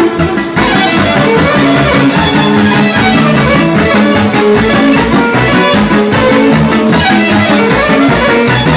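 Live band playing folk dance music: a Yamaha Motif XF6 synthesizer keyboard carrying the melody over electric guitar and a drum kit.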